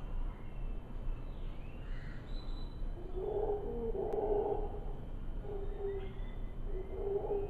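Howler monkeys calling from the trees: a long, deep call starting about three seconds in, then two shorter calls near the end.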